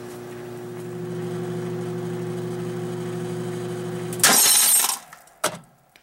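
Microwave oven running with a steady electrical hum while 7.62×39 rifle cartridges heat inside it. About four seconds in, a cartridge cooks off with a loud crash lasting under a second: its casing punches through the oven door and the hum cuts out. A single sharp crack follows about a second later.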